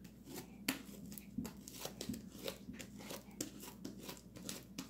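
Sticky homemade butter slime being kneaded and pulled apart by hand, giving a quick, irregular run of small sticky clicks and pops.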